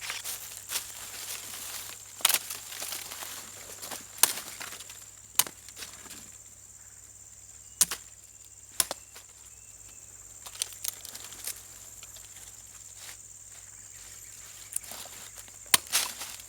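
Irregular sharp snaps and clicks, a dozen or so at uneven gaps, the loudest about two seconds in, near eight seconds and near the end, over a steady high-pitched drone.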